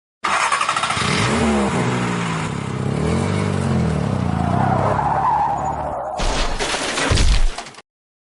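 Car sound effect: an engine revving up and down with tyres squealing, swelling to a louder rumble near the end before cutting off abruptly.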